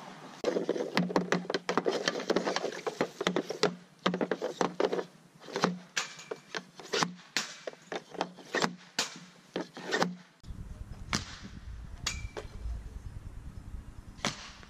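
Hockey stick and pucks clacking on plastic dryland shooting tiles: rapid, dense clacks, then more spaced, sharper cracks as shots are taken. About ten seconds in, this gives way to a low rumble with a few single slapshot impacts against the net and backstop.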